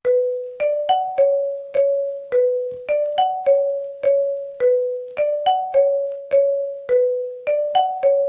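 Ringtone melody of single struck notes that each die away quickly, about two a second, repeating the same short phrase every couple of seconds. It starts abruptly out of silence.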